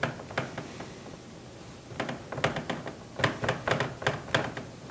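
Dry-erase marker writing on a whiteboard: a stroke or two at the start, then a quick run of short scratchy strokes from about two seconds in, lasting a couple of seconds.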